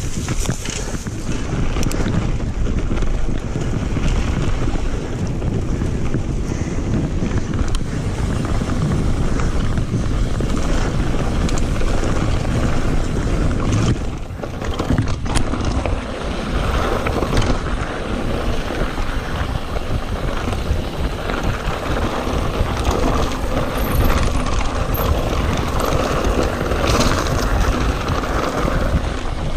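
Mountain bike riding fast down a dirt and gravel trail: wind buffeting the handlebar camera's microphone over the rumble of tyres and the rattle of the bike on the rough ground. The noise dips briefly about fourteen seconds in.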